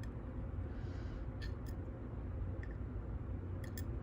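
A handful of faint, sharp clicks of tweezers and small brass lock pins being handled while a lock plug is repinned, over a low steady background hum.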